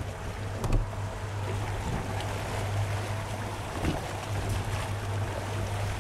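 Sportfishing boat's engine running with a steady low hum, over the wash of water along the hull and wind on the microphone. A couple of short knocks, the loudest about a second in.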